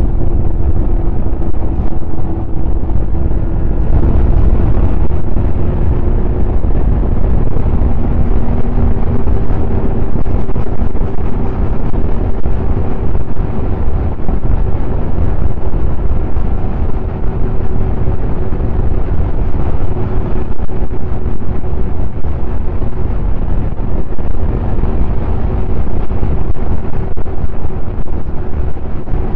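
Snowmobile engine running steadily at an even pitch, with heavy wind rumble on the microphone.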